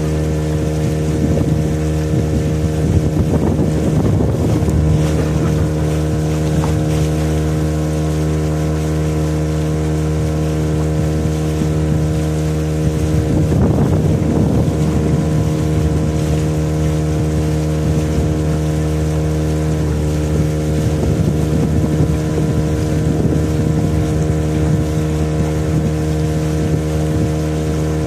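Small motorboat's engine running steadily at cruising speed, a constant hum that holds one pitch, with wind on the microphone that gusts briefly a few seconds in and again around the middle.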